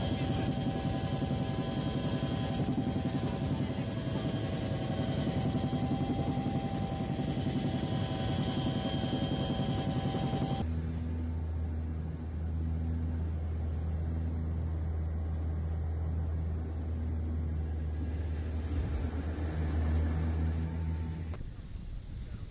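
Steady helicopter engine and rotor noise heard from inside the aircraft, with a high whine over it. About halfway it changes abruptly to a deeper, heavier drone. Near the end it drops to a quieter background.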